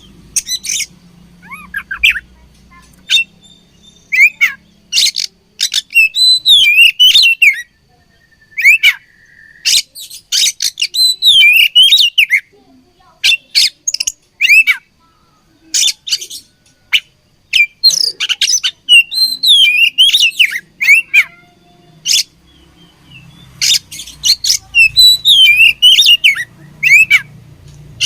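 Oriental magpie-robin singing loudly in repeated bursts: rapid chattering notes mixed with whistled, up-and-down phrases, each burst lasting a second or a few seconds, with short pauses between them.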